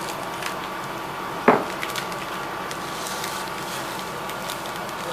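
A pot of chicken in coconut-milk broth boiling on the stove, with a steady bubbling hiss and faint pops. One sharp knock, the loudest sound, comes about a second and a half in.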